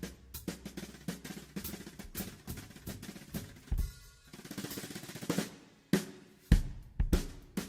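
Drums being played: a run of quick, sharp strikes with a brief lull a little before the middle, then heavier low hits toward the end.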